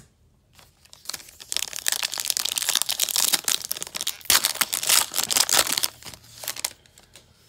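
Foil wrapper of a trading-card pack crinkling and tearing as it is ripped open by hand: a dense, loud crackle from about a second in, dying away near the end.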